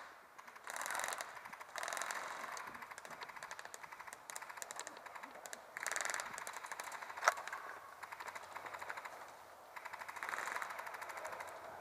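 Airsoft guns firing in rapid full-auto bursts, a fast rattle of clicks: several bursts, with one sharper single crack about seven seconds in.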